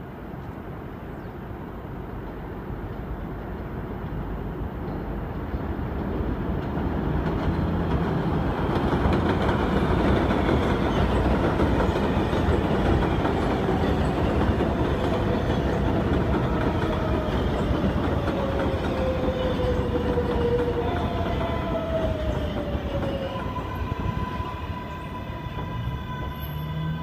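New York City subway train on an elevated steel structure, approaching and running in with heavy wheel rumble and rail clatter that builds to a loud peak. In the second half, the electric motor whine falls in pitch as the train slows into the station, ending in a steady higher whine.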